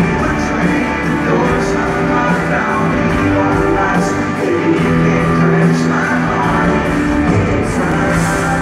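A live country band playing loudly through a large PA, with guitars, drums and a sung lead vocal, heard from within the audience.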